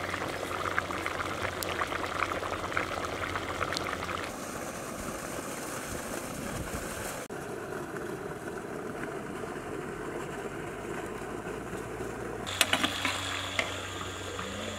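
Bottle gourd curry boiling in an iron kadai, thick bubbles popping, then water running and trickling, and near the end a few sharp knocks of a metal ladle against the kadai.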